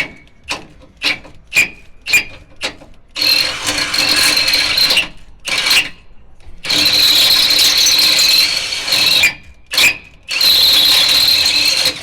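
Electric drill boring into steel: a few quick trigger blips, then longer runs of steady motor whine that stop and restart several times as the bit cuts through the metal.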